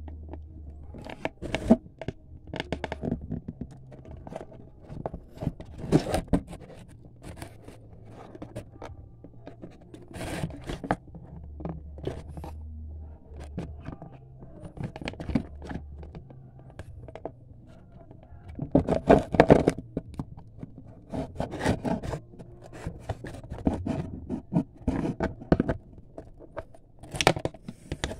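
A cardboard toy box being handled and opened by hand: irregular scraping, crinkling and tearing with small taps, growing busier and louder around twenty seconds in and again near the end.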